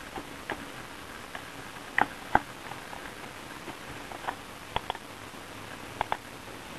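Button clicks of an ELECOM EGG optical mouse, irregular and sharp, several coming in quick pairs, over a steady hiss.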